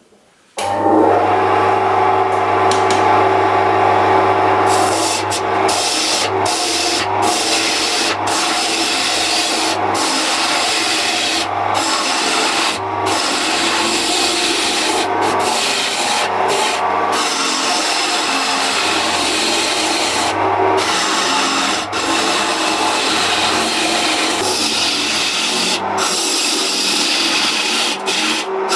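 Wood lathe spinning a glued-up pine and walnut blank while a turning gouge cuts it, a continuous scraping cut over the lathe's steady motor hum. It starts abruptly about half a second in, and the cutting noise briefly drops out every second or two as the tool comes off the wood.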